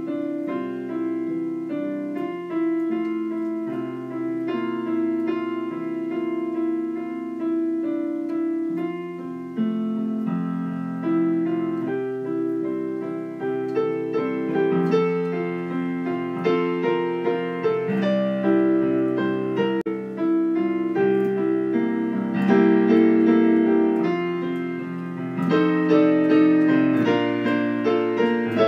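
Background piano music: slow, held chords at first, with notes coming more often in the second half.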